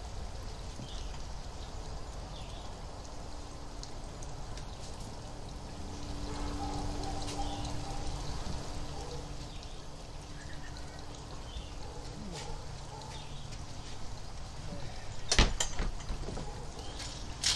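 Outdoor background noise: a steady hiss over a low rumble, with the faint hum of distant lawn-equipment engines in the middle and scattered faint bird chirps. A single sharp knock sounds near the end.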